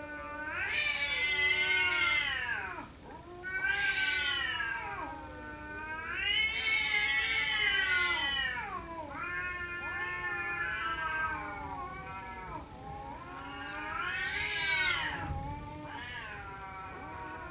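Cats yowling in a fight standoff: long, wavering caterwauls that swell and fade over and over, with loud peaks about a second, four and seven seconds in and again near the end. This is the threatening yowl of cats squaring off to fight.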